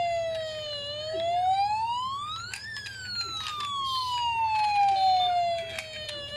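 Toy fire truck's electronic wail siren: one pitched tone that dips, climbs for about two seconds, then falls slowly for about three and a half seconds and starts climbing again near the end, with a few faint clicks.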